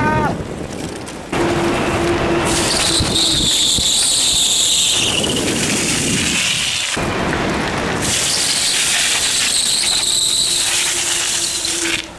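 Loud wind and road noise on the microphone, broken off abruptly by several edits, with a high bicycle brake squeal over two stretches: one a few seconds in that slides lower as it fades, and another from about eight seconds in that stops suddenly near the end.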